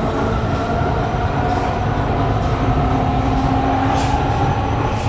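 Kawasaki Heavy Industries C151 train's GTO-VVVF traction inverter and motors whining in several tones that slowly rise in pitch as the train gathers speed, over a steady rumble of wheels on the rails, heard inside the carriage. A brief click about four seconds in.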